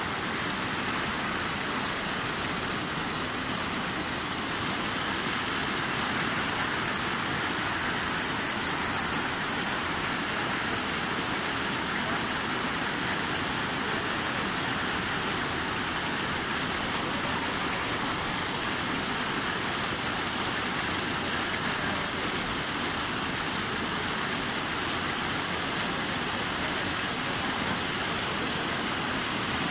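Floodwater pouring over a low ledge in a brick channel into churning white water below: a steady, even rush.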